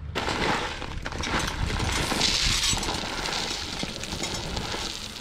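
Protein deer feed pellets and corn pouring from a bag into a rotomolded plastic feeder hopper: a continuous rattling hiss that swells to its loudest about halfway through, then eases off.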